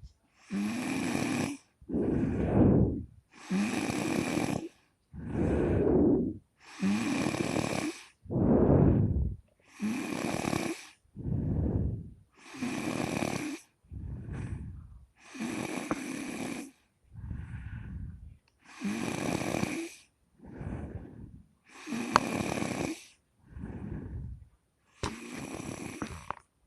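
A person snoring in a steady rhythm, a breath in and a breath out about every three seconds, the in-breaths sounding brighter than the lower out-breaths.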